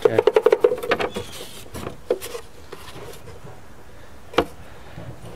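A wooden drawer rubbing and knocking in its wall opening: a quick rattling run of wood knocks in the first second, then two single knocks, the second near the end.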